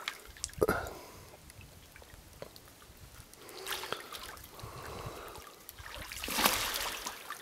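Water splashing and sloshing around a snorkel diver in a wetsuit wading and swimming through a shallow channel. There are short splashes about a second in and near the middle, and a louder stretch of splashing near the end.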